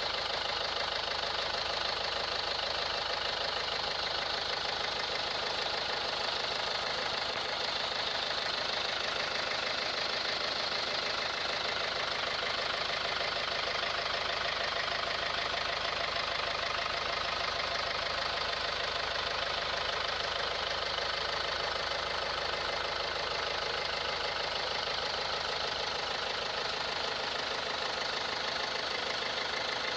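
Renault 1.5 dCi four-cylinder common-rail diesel engine idling steadily, heard close up in the open engine bay, with a fast, even diesel tick. This is the normal sound of a healthy 1.5 dCi with no fault.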